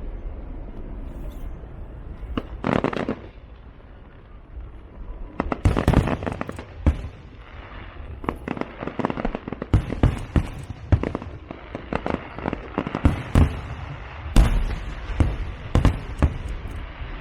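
Fireworks going off. A short cluster of bangs comes about three seconds in, then a dense run of sharp cracks and booms starts at about five seconds, with the loudest bangs near the end.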